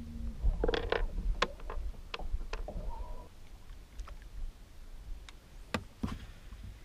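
Clicks and knocks of fishing tackle being handled on a bass boat, busiest in the first three seconds, then quieter, with two sharp clicks near the end.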